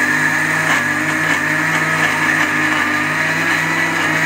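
Panasonic mixer grinder running steadily at full speed, its steel jar grinding soaked raw rice with rock salt into a smooth batter.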